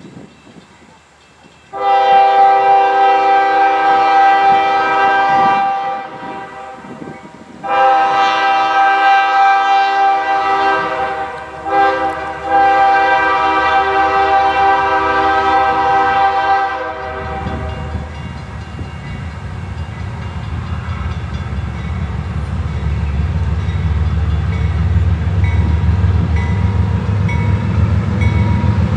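A CSX diesel freight locomotive's air horn sounds the grade-crossing signal: two long blasts, a short one, and a long one. After the horn stops, the low rumble of the locomotive's diesel engine and the train grows steadily louder as it approaches.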